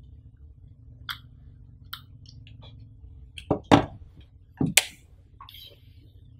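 Hands handling Samsung Galaxy Buds earbuds, their plastic charging case and a cardboard box insert on a tabletop. A few light clicks come first, then four sharper knocks as the pieces are set down, between about three and a half and five seconds in. A faint steady hum lies underneath.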